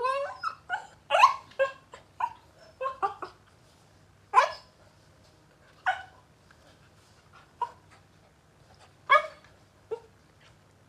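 Puppy barking in short, high yaps while playing: a quick run of them at first, then single barks every second or two.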